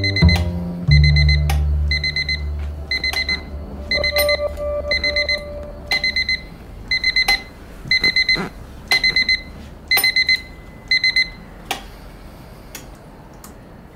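Electronic alarm clock beeping: quick clusters of high pips repeating steadily, then stopping about eleven seconds in.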